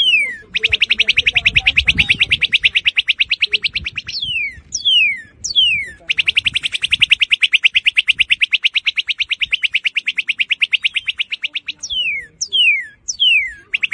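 Northern cardinal singing: loud, sharp down-slurred whistles alternating with two long rapid trills of fast repeated notes, the first about three seconds long and the second about five and a half seconds. A fresh trill starts right at the end.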